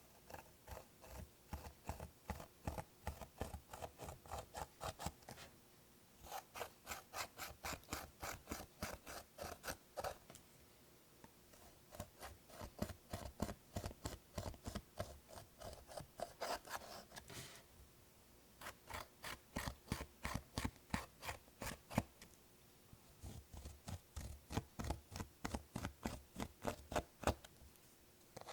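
Rapid scraping, clicking strokes of eyeshadow being worked into clear slime, about three a second, in runs of several seconds with short pauses between.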